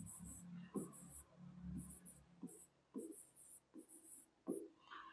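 Faint, quick scratching and tapping of a pen writing on an interactive whiteboard, in short irregular strokes about two a second.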